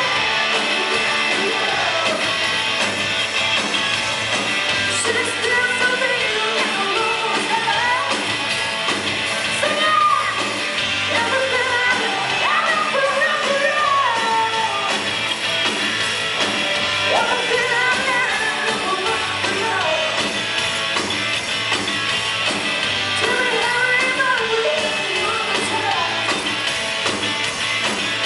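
Live rock band playing: a woman sings lead over electric guitars, bass and drums, heard from the crowd.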